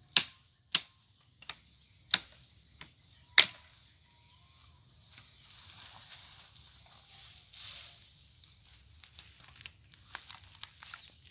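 A handful of sharp chopping blows on wood, irregularly spaced over the first three and a half seconds, the last the loudest. Insects sing steadily as a constant high-pitched tone throughout.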